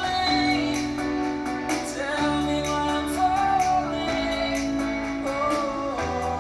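A song with singing and a steady bass line, played through a Simbadda CST-6100N speaker system in a sound test.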